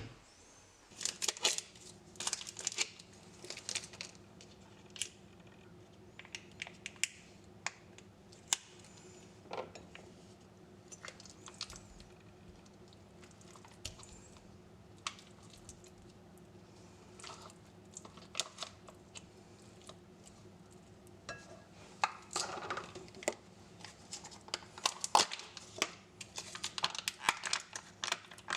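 Scattered clinks, knocks and rustling of things being handled in a kitchen, busiest about a second in and again in the last third, over a faint steady hum.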